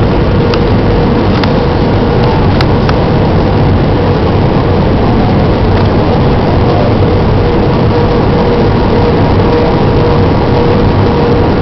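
Airbus A319 cabin noise: the steady rush of engines and airflow heard from a passenger seat, with a steady mid-pitched hum underneath. A few faint ticks sound in the first few seconds.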